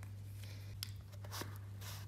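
Faint handling noise of hands reaching into a cardboard watch box, with a couple of light taps, over a steady low hum.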